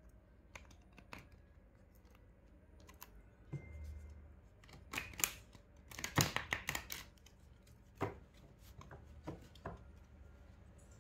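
A deck of tarot cards being handled and shuffled by hand on a table: scattered light card taps, a soft thump about three and a half seconds in, and a quick run of flicking, slapping card sounds from about five to seven seconds in.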